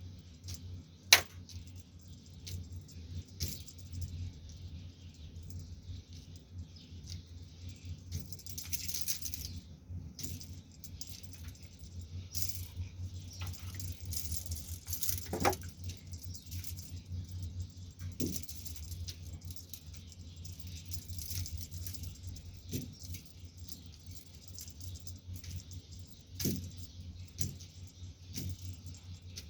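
Light rattling and scattered sharp clicks, one much louder than the rest about a second in, over a low steady hum.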